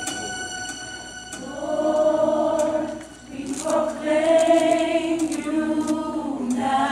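A choir singing long held notes without accompaniment, in two phrases with a brief pause between them. It comes in about a second and a half in, as a ringing instrumental chord fades away.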